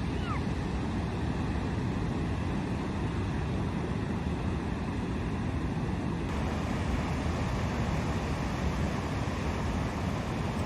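Steady wind buffeting the microphone over the wash of ocean surf, a continuous rumbling noise with no engine tone in it.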